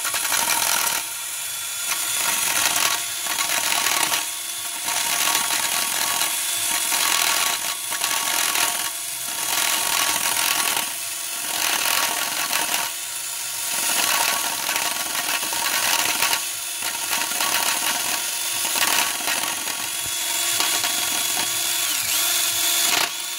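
Makita variable-speed hand drill turning a GY6 case boring tool, its cutter scraping aluminium out of the 157QMJ engine case's cylinder opening. The harsh cutting noise swells and eases every second or two over the drill motor's steady whine; the bore is nearly cut to size.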